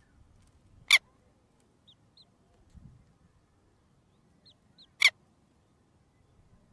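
Two short, loud, harsh bird calls about four seconds apart, with faint high chirps in pairs between them.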